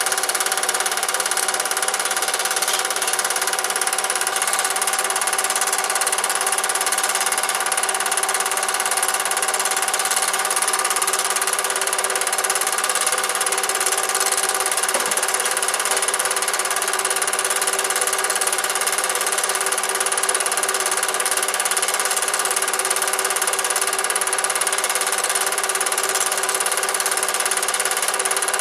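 Cine film projector running steadily, its motor and film transport giving an even mechanical whirr with steady tones over a constant hiss.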